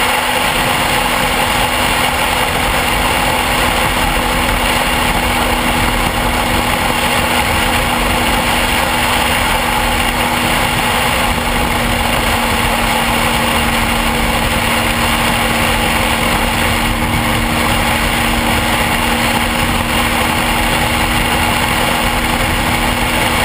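Motorcycle engine running steadily at an even pitch through a loud, constant rush of noise.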